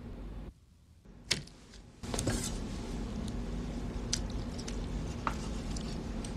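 A few sharp clicks and clinks of kitchenware over a low steady hum. A brief hush near the start is broken by one sharp click, and the hum returns about two seconds in.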